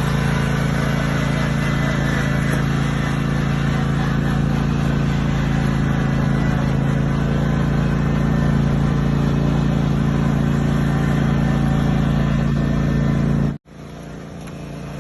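Riding lawn mower engine running steadily at a constant pitch. Near the end the sound cuts out abruptly and returns much quieter, growing slowly louder.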